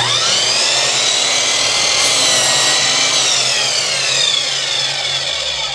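Power chop saw (mitre saw) cutting through a board: the motor starts with a quickly rising whine, keeps running loudly through the cut with its pitch sagging in the second half, and begins winding down near the end.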